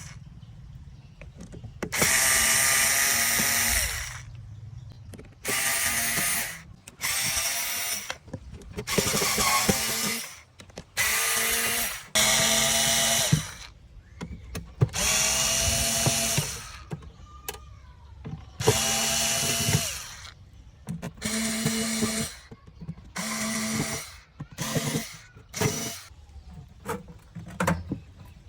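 Small handheld electric power tool, drill-type, run in about a dozen short bursts. Each burst is a steady motor whine of half a second to two seconds with quiet gaps between, the later bursts shorter and closer together.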